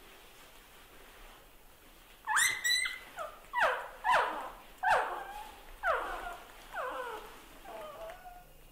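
Newborn puppy crying: a string of short whines, each falling in pitch. They start about two seconds in, come about one a second, and grow fainter toward the end.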